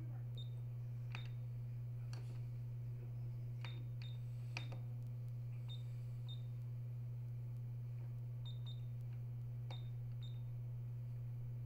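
Ultrasound machine controls being worked: scattered sharp key clicks and about a dozen short, high beeps, over a steady low electrical hum.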